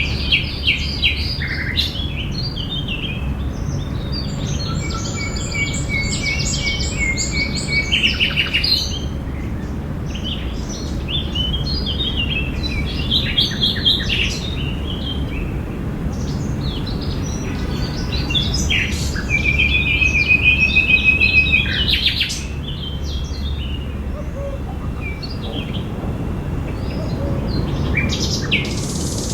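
Several birds chirping and singing in a park, with short calls overlapping throughout and a couple of longer rapid trills, the loudest about two-thirds of the way through, over a steady low background rumble.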